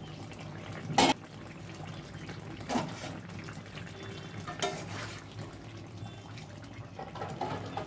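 Thin fish curry simmering in an aluminium kadai, with a metal spatula knocking and scraping against the pan a few times. A loud metal clank comes about a second in.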